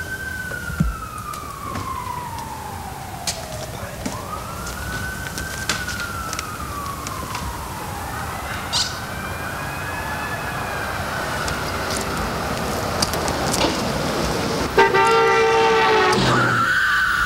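Emergency vehicle siren wailing: each cycle rises quickly and then falls slowly over about four seconds, growing louder, with scattered clicks and knocks. Near the end a louder, different tone takes over.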